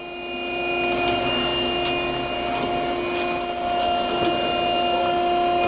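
Okamoto ACC-1224DX surface grinder running: a steady motor hum with a high whine that grows a little during the first second, with a few faint clicks.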